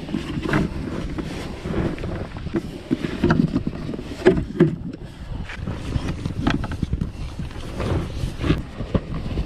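Irregular rubbing and bumping against an inflatable boat's PVC tube while it is being handled, with wind rumbling on the microphone.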